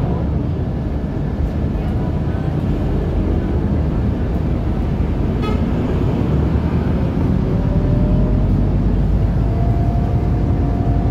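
Scania articulated bus under way, heard from inside the cabin: a steady engine and road rumble with a faint whine that rises slightly in pitch in the second half. A short high tone sounds once about five and a half seconds in.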